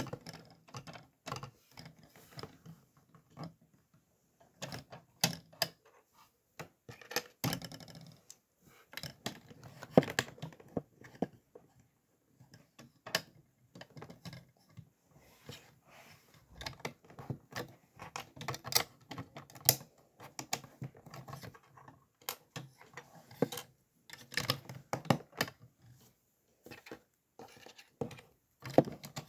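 Plastic LEGO pieces clicking and rattling as they are handled and pressed together, in irregular clicks.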